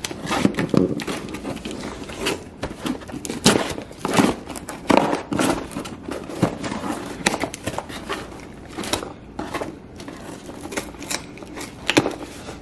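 A knife blade slitting the packing tape on a cardboard shipping box, then the cardboard flaps being pried up and handled: irregular scraping, tearing and crinkling with many small clicks and knocks.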